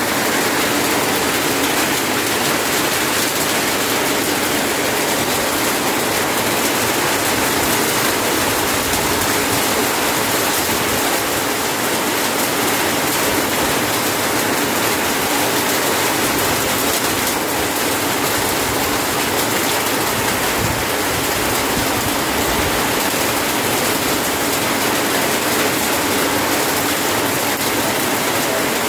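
Heavy rain falling, a loud, steady hiss of countless drops with a fine crackling texture.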